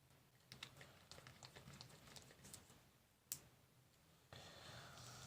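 Faint, irregular light clicks of a small screwdriver and tiny screws being worked inside an open laptop, with one sharper click a little past three seconds in.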